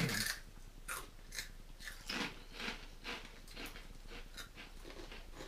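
Two people biting into and chewing crisp onion-flavoured corn-starch ring snacks, with a string of irregular crunches.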